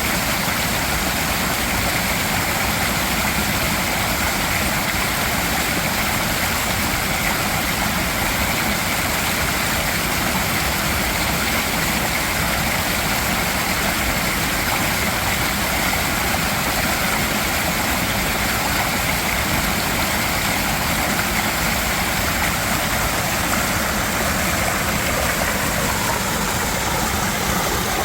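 Mountain stream water rushing and splashing over rocks, a steady, even roar of water.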